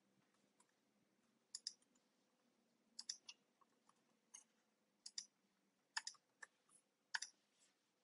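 Computer keyboard keystrokes and clicks, about a dozen scattered short taps, some single and some in quick pairs.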